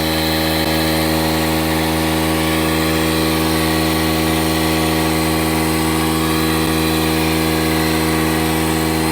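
DeWalt cordless tire inflator running steadily at a constant pitch, pumping up an e-bike tire toward its 33 psi set point.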